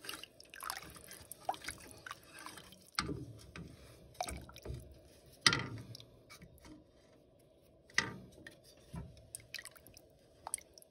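Wooden spoon stirring broth in a pot: liquid sloshing and dripping, with irregular knocks of the spoon against the pot, the loudest about five and a half and eight seconds in.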